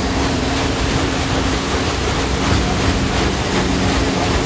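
Paddlewheel of a paddlewheel boat churning water, a steady rush of splashing, over a constant low hum from the boat's machinery.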